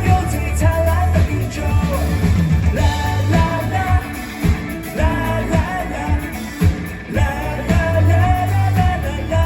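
Live pop-rock band playing, with a held melody line over loud, steady drums and bass.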